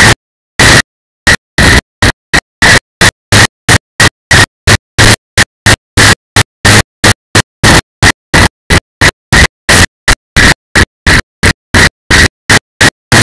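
Audio track breaking up: loud static-like noise chopped into short bursts with dead silence between them, a few at first, then about three a second.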